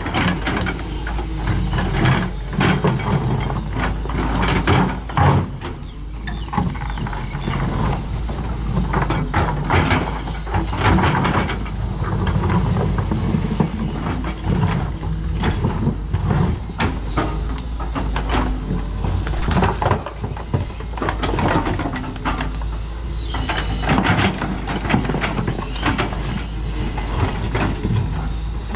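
Doosan DX225LCA excavator working, its diesel engine running steadily under frequent clanks and rattles of metal and loose material.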